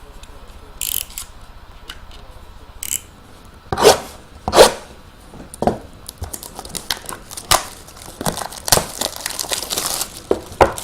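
Packaging being torn open and handled by hand: plastic wrapper crinkling and tearing, with scattered rustles and two louder sharp handling noises about four seconds in, and a busy stretch of quick rustling in the second half.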